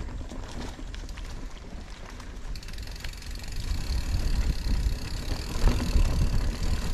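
Mountain bike rolling down a stony trail: tyre noise and short knocks from the bike, with wind rumbling on the microphone. It grows louder in the second half.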